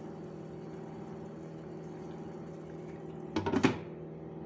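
Pot of rice and lentils bubbling at the boil over a steady hum. About three and a half seconds in, a steel-rimmed glass lid clatters onto the pot.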